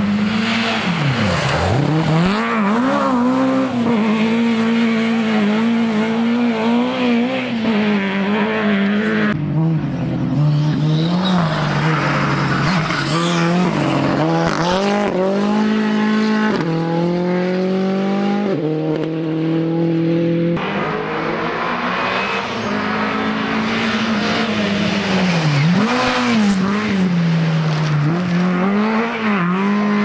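Rally cars, one of them a Ford Fiesta, driving flat out along a special stage, cut one pass after another. Their engines climb steeply in pitch and drop back again and again with each gearshift and lift off the throttle.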